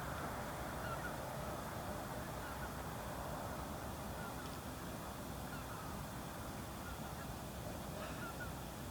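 A huge flock of Baikal teal calling together: a dense, steady chorus of massed calls, with a few short, higher calls standing out now and then.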